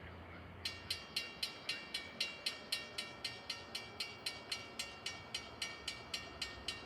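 Railroad crossing warning bell that starts ringing about half a second in and keeps up an even, rapid ring of about four strikes a second: the crossing protection has activated for an approaching train.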